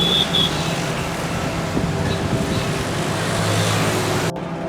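Street traffic: motor vehicles running with steady engine hum and road noise, and two short high chirps at the very start. The sound changes abruptly, going duller, about four seconds in.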